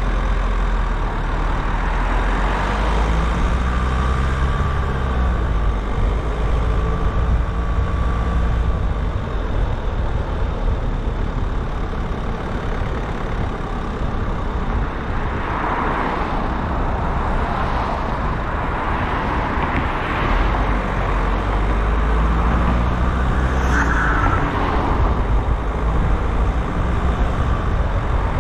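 Car driving on a city road: steady engine and tyre noise over a low road rumble, with an engine note that rises and falls twice.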